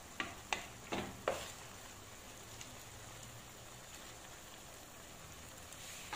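A spatula knocks against a frying pan four times in quick succession, then a faint steady sizzle of a tomato and zucchini sauce simmering with beaten egg setting in it.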